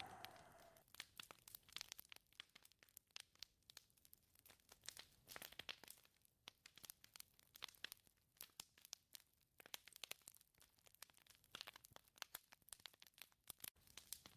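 A whistling wind gust dies away about a second in, leaving faint, sparse, irregular crackling and ticking.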